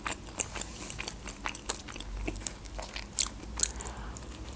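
Close-up chewing and biting of homemade pizza: wet mouth sounds and crunchy, crackling bites into the crust, with a fresh bite of a slice near the end.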